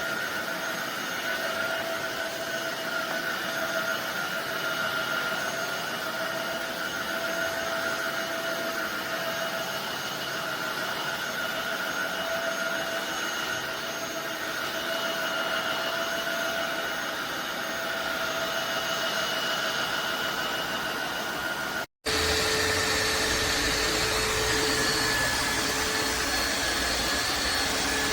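Motor of a Tineco iFloor 5 Steam wet-dry floor cleaner running steadily, a whirring hiss with a held whine. About 22 seconds in it cuts out for an instant and comes back louder, with a lower whine and more low hum.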